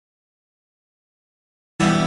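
Complete silence, then music with strummed acoustic guitar starts suddenly just before the end.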